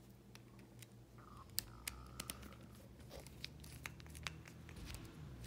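Small countersunk screw being turned in with a hand screwdriver: faint scattered clicks and scraping of the driver tip and parts being handled, with a brief faint squeak about a second in.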